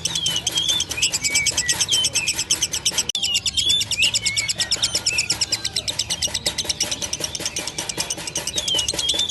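Lovebird singing the long, fast chattering trill that hobbyists call 'ngekek': high notes repeated evenly at roughly nine a second without letting up, with short whistled chirps over it. This nearly unbroken run is what keepers call a bird heading toward 'konslet'.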